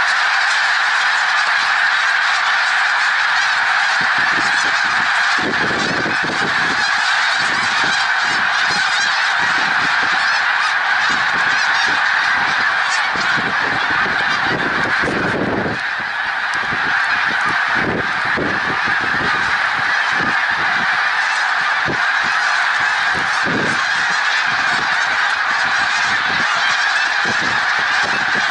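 A huge flock of snow geese in flight, thousands honking at once in a dense, unbroken din in which no single call stands out. Short low rumbles come and go beneath it from about four seconds in.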